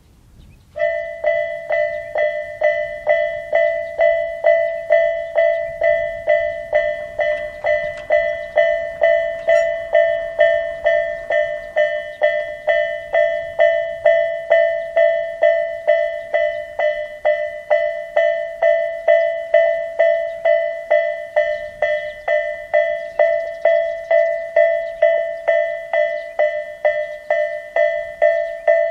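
Japanese level-crossing alarm of the Tobu Isesaki Line, Tobu's distinctive electronic 'Isesaki-type' warning bell, starting about a second in and ringing steadily at about two strikes a second: the signal that a train is approaching and the crossing is closing.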